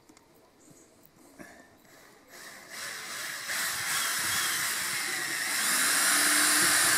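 Power drill boring a hole through a caravan wall, starting about two seconds in and growing loud, with a rushing cutting noise and a motor note that rises and falls near the end.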